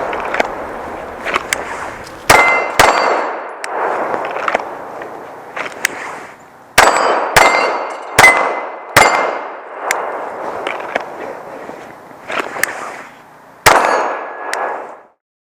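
A string of sharp gunshot reports from a 9mm Sig P226 Legion pistol at irregular intervals, several of them followed by a brief metallic clang and ring.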